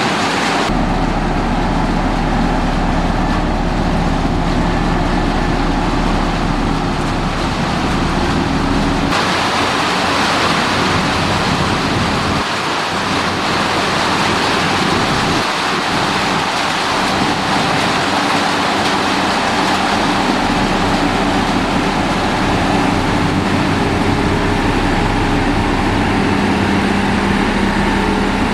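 Diesel engines of heavy road-construction machinery running steadily under load, with abrupt changes in the sound about a second in and again about nine seconds in.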